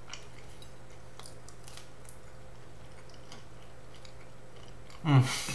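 Faint sounds of chewing a baked sweet potato wedge: scattered soft clicks over a steady low hum. A short voiced sound breaks in near the end.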